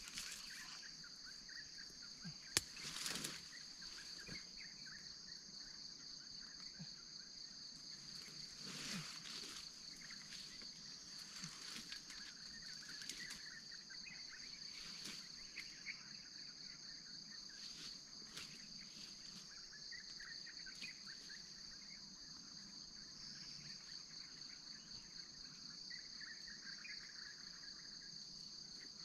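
Steady high-pitched insect chorus, a continuous two-toned buzz, with scattered rustles and a sharp click about two and a half seconds in.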